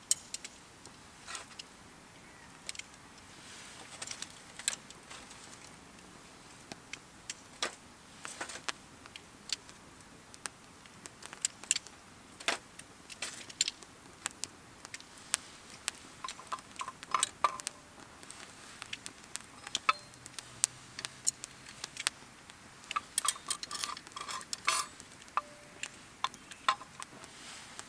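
Metal utensils clinking and tapping against camp cookware: irregular sharp clicks and clinks, a few with a brief ring, bunched into busier runs partway through and again near the end.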